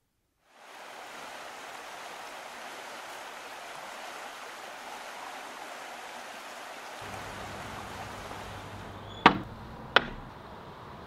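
Steady outdoor rushing noise, even and without any pitch. A faint low hum comes in about seven seconds in, and near the end there are two sharp knocks about 0.7 s apart, like hard containers set down on a wooden table.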